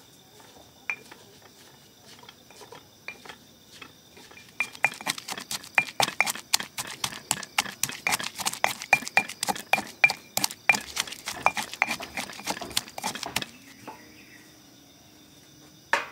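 Stone pestle pounding in a stone mortar (Indonesian cobek and ulekan), crushing ingredients: a few scattered taps, then from about four seconds in a fast run of sharp knocks at about four a second that stops a couple of seconds before the end.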